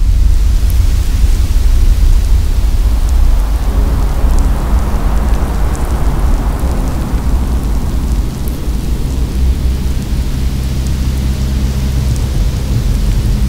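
Electronic ambient soundtrack: a heavy low rumble under a rain-like hiss of noise, with sparse high ticks. A steady low drone note comes in about four seconds in.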